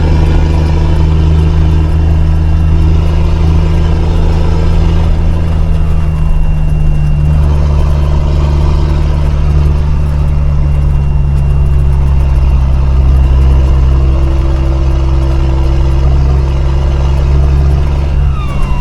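Engine of a 5-ton military truck running steadily under load as it climbs a steep, rough mountain road, heard from inside the cab, its low drone shifting a little in pitch now and then.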